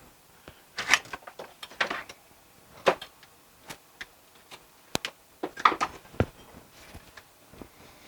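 Scattered clicks, taps and light knocks of tools and parts being handled, with a sharper knock about five seconds in and short scrapes or rustles between them; nothing runs steadily.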